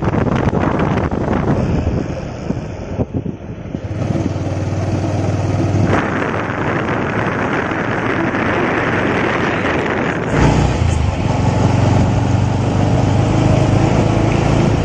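Motorcycle riding along a road at speed: the engine's low steady hum under the rush of wind and tyre noise, with the level dipping briefly a few seconds in.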